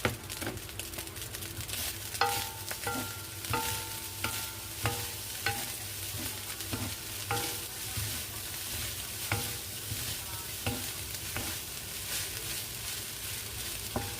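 Garlic fried rice sizzling in a hot pan as it is stir-fried, with a spatula knocking against the pan about once or twice a second, each knock ringing briefly.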